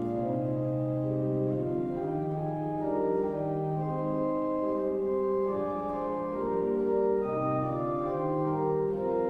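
Organ playing a slow hymn tune in held chords that change about once a second: the introduction to the final hymn.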